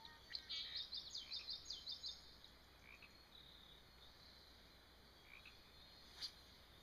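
A small animal's call: a rapid run of high chirping notes, about five a second, lasting roughly a second and a half, over near silence. A single sharp click about six seconds in.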